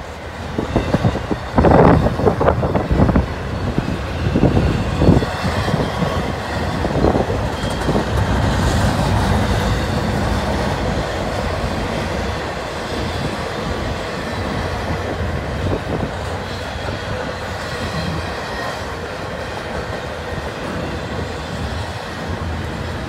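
Double-stack container cars of a CN freight train rolling past: steel wheels on rail making a steady rolling noise. It is punctuated by uneven loud knocks over the first several seconds, then evens out.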